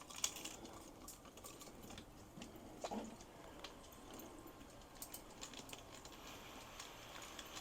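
Faint, scattered light clicks and taps, like small metal hanging hardware being handled.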